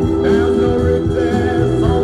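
Music: a rock-style song with a singing voice over instruments.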